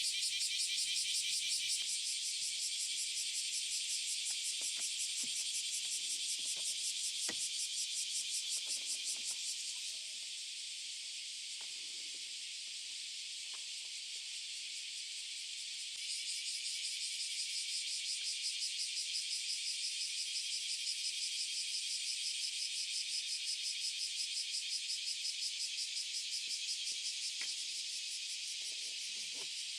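High-pitched insect trill, pulsing rapidly and evenly. It fades back about ten seconds in and returns strongly about six seconds later, with faint scattered clicks and taps beneath it.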